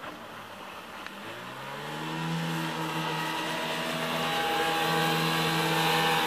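Mercury 25XD two-stroke outboard motor running at speed on a passing boat, its pitch climbing about a second and a half in, then holding steady while growing louder as the boat comes closer, loudest near the end.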